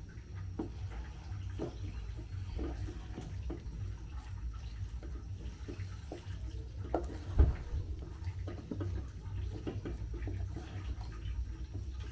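Thick ugali being stirred and pressed against the side of a sufuria: repeated soft, wet squelching strokes over a steady low rumble, with one louder knock about seven seconds in.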